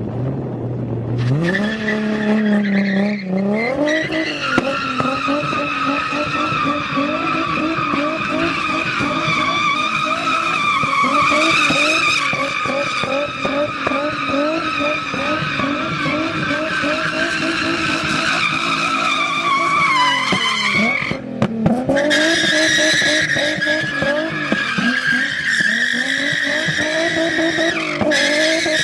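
Car engine revving up and held at high revs while the tyres squeal continuously through a long drift. About two-thirds of the way in, the revs and squeal drop off briefly, then pick up again.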